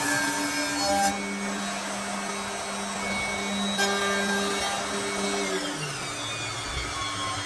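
16-head CNC wood lathe machining wooden blanks: a steady motor whine over the rasp of the cutters on wood. The pitch drops near the end as the machine winds down.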